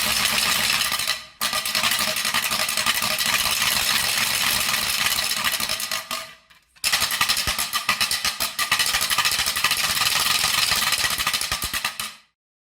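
Carraca, a wooden ratchet noisemaker, swung to make a loud, fast run of clacks. The clacking breaks off briefly just over a second in and again for about half a second past the six-second mark, then runs on and stops suddenly about twelve seconds in.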